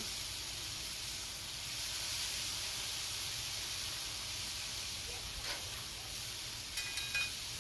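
Marinated thin-cut beef frying in avocado oil on a hot Cuisinart 360 flat-top griddle: a steady, even sizzle.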